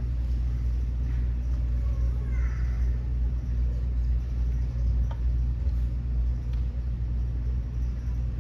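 Steady low rumble of background room noise, with a faint distant voice briefly about two seconds in and a couple of light clicks later on.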